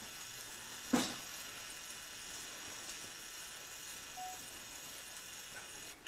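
Faint steady hiss of room noise, broken by a single sharp knock about a second in.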